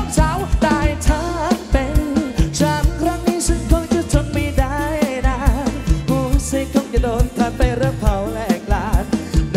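Live band music over a PA, with a lead singer's wavering, ornamented melody over a steady drum-kit beat.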